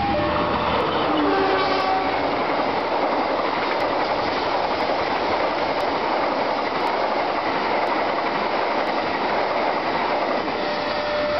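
Sancaka express train passing at speed close by. Its diesel locomotive goes by in the first seconds with sounds that fall in pitch, then a loud steady rush of steel wheels on the rails as the long line of passenger coaches runs past. A steady horn tone comes in near the end.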